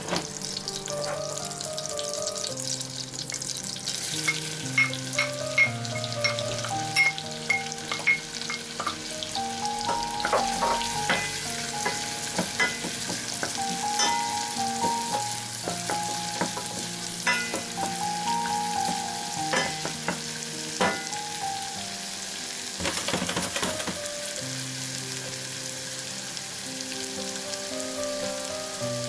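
Finely chopped onion sizzling as it softens in melted butter in a stainless steel saucepan, stirred with a spatula that clicks and scrapes against the pan in the first two-thirds. Background music with a slow melody plays throughout.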